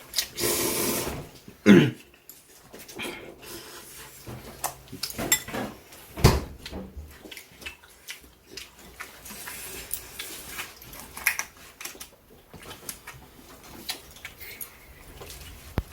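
Dishes and cutlery clinking and knocking at a table during a ramen meal, in scattered irregular taps. A short squeal gliding downward in pitch about two seconds in, and a heavier thud about six seconds in.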